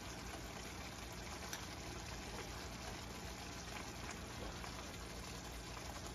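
Sauce simmering in a pan: a steady, quiet bubbling hiss, with a few faint light ticks.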